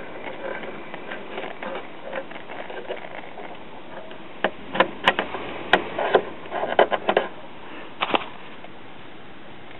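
Crackles and clicks over a faint static hiss from a vintage Truetone battery-operated tube radio just switched on, the clicks clustering between about four and a half and eight seconds in.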